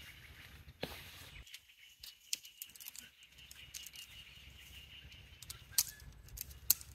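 Outdoor ambience: faint bird chirps with a thin steady high tone, broken by scattered sharp clicks and ticks, the loudest near the end.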